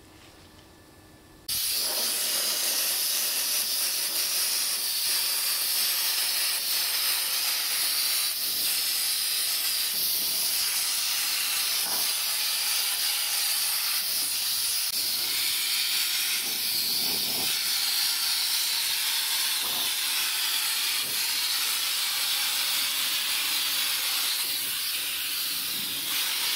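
Compressed-air hopper spray gun spraying a cork insulation mix onto a van's metal walls: a loud, steady hiss of air and spray that starts about a second and a half in and runs on without a break.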